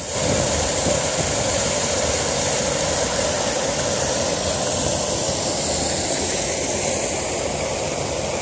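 Small waterfall pouring over a stone-walled weir into a shallow pool: a steady, unbroken rush of falling water.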